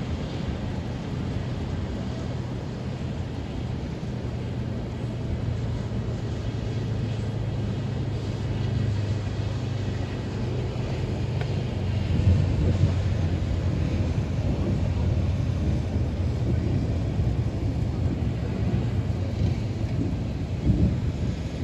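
Thunderstorm wind and a low rumble, steady throughout, swelling about 12 seconds in and with a sharper surge near the end.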